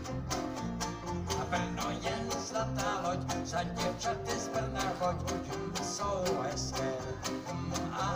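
Live acoustic band with banjo and guitars playing an upbeat country-style tune with a steady beat.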